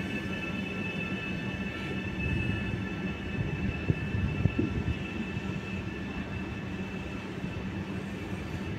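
A Trenord ETR 521 "Caravaggio" double-deck electric multiple unit running past. There is a steady high whine over the rumble of wheels on rail, with a few sharp wheel clicks about four seconds in.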